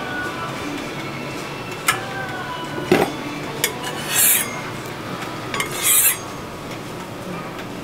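Crepe cooking on a hot round crepe griddle, with a few sharp clinks of metal utensils and two short hissing bursts about four and six seconds in.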